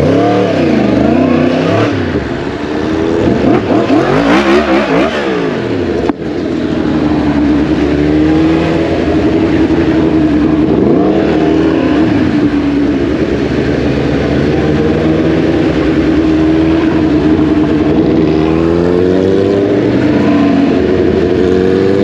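A 2023 Yamaha MT-10's crossplane inline-four engine under way. Its revs rise and fall several times over the first few seconds, cut out sharply for an instant about six seconds in, then hold a steady pitch with only small dips.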